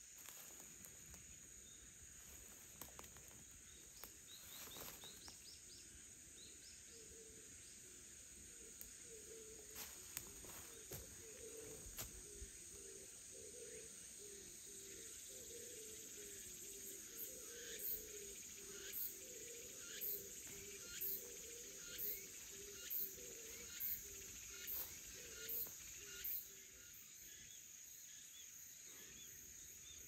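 Cicadas singing: a faint, steady high drone throughout. From about halfway through, a loud pulsing call comes in at about one pulse a second and breaks off suddenly a few seconds before the end.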